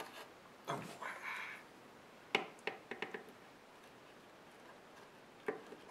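Quiet bench work: a few faint, sharp clicks of needle-nose pliers and a soldering iron tip against a stainless wire hot staple on a plastic fan shroud, bunched a little over two seconds in and once more near the end, with a soft hiss about a second in.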